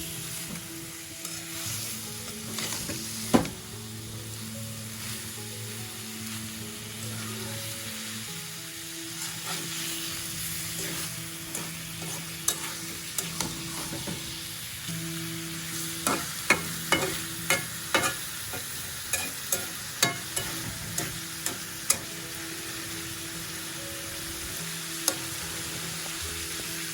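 Food sizzling as it fries in a pan, with a spatula stirring and clinking against the pan. There is a sharp knock about three seconds in and a quick run of clinks in the second half.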